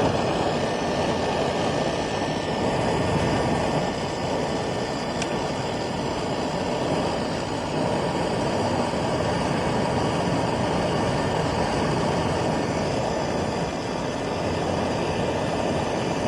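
New aftermarket HVAC blower motor of a 2017 GMC Terrain running, a steady rush of air from its fan. It runs quietly and blows hard, the old motor's roaring from worn bearings cured.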